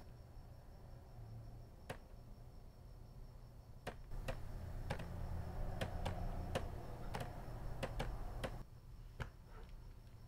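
Scattered light key clicks, about a dozen over several seconds and irregularly spaced, over a low steady hum that grows louder through the middle and drops back near the end.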